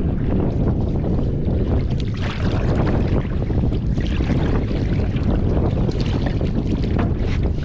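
Wind rumbling on the microphone over the splash of canoe paddle strokes and small waves lapping against the hull.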